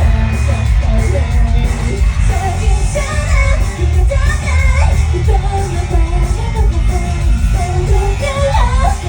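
Pop song with a singing voice over heavy, steady bass, played loud in a large hall.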